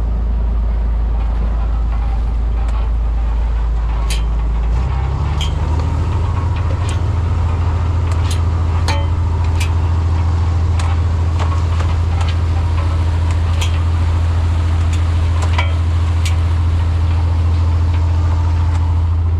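Fishing boat's engine running steadily, then throttled up about five seconds in, its low drone stepping to a higher pitch and holding there. Scattered sharp clicks and knocks sound over it.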